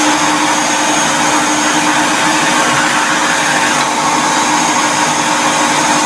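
Stainless-steel drum wet-and-dry canister vacuum cleaner running steadily at full suction, a constant whine over the rush of air through the hose.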